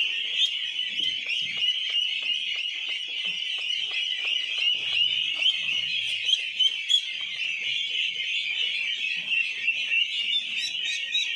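A flock of ducklings peeping continuously, many high-pitched calls overlapping into one unbroken chorus.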